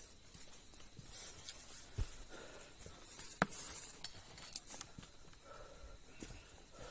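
Footsteps and rustling of people walking a forest trail: irregular crunches and knocks with brief hissing scrapes.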